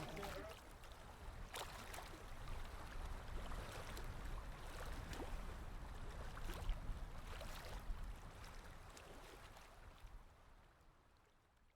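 Faint outdoor background noise with a low rumble and scattered clicks, fading out near the end.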